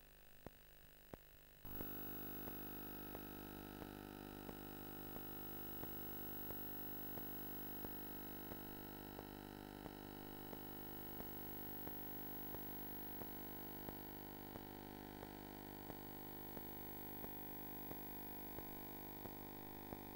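Near silence with a couple of soft clicks, then, about two seconds in, a faint steady electrical hum of several level tones comes up, with a small tick repeating about three times every two seconds.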